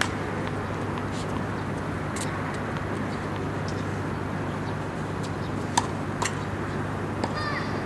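Steady outdoor background noise with a low hum of distant city traffic. About two-thirds of the way in come two sharp taps of a tennis ball bouncing on the court.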